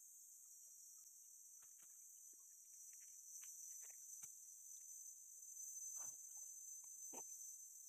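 Steady high-pitched chorus of forest insects, with scattered soft crackles and snaps, the loudest two near the end.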